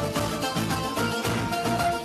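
Music with a steady beat and sustained pitched notes.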